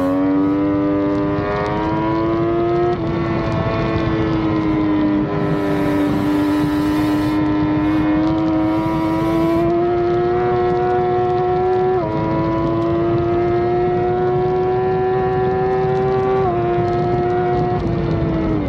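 Triumph 675's inline-three engine running hard at track speed, its pitch climbing slowly and dropping sharply at gear changes about 12 and 16 seconds in.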